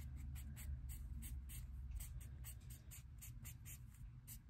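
Alcohol marker tip scratching across sketchbook paper in quick short strokes, several a second, colouring in a drawing.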